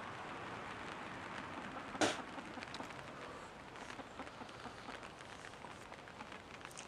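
A person with a mouthful of dry flour coughs once, sharply, about two seconds in, over a steady outdoor hiss.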